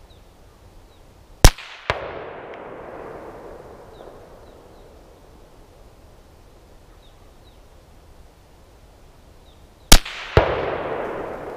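Two rifle shots from an AR-15 A2, about eight and a half seconds apart, fired slowly at a 300-yard target. Each shot is followed about half a second later by a second crack and a long rolling echo that dies away.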